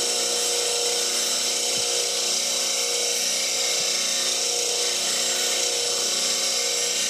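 8-inch slow-speed (1725 rpm) bench grinder running with a skew chisel's bevel held against its CBN wheel: a steady grinding hiss over the motor's even hum.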